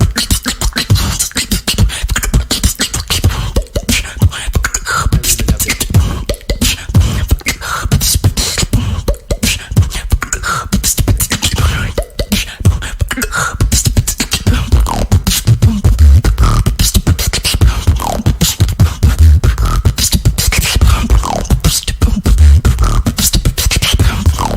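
A female beatboxer performing: a fast, dense stream of clicks and snare-like hits over heavy bass kicks, with short falling pitch glides now and then.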